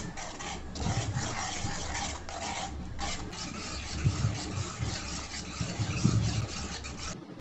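A metal spoon stirring and scraping through strawberry syrup and milk in a steel kadai, with the mixture simmering. A few low, dull knocks sound around the middle and near the end.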